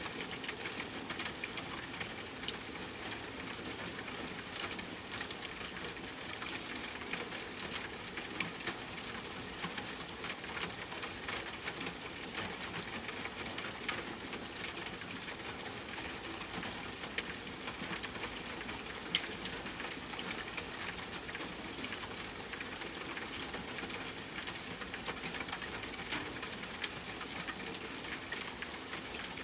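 Steady rain falling, an even hiss with the close patter of single drops hitting a surface.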